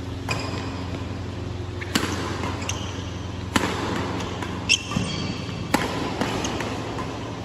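Badminton rackets striking a shuttlecock in a rally: four sharp hits about one and a half to two seconds apart, with fainter ticks between them and a short squeak about halfway through, over a steady low hum.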